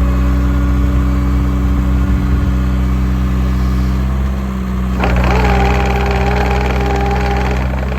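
JCB 55Z-1 midi excavator's diesel engine running steadily. About five seconds in, a steady whine with two pitches comes in over it and stops about two and a half seconds later.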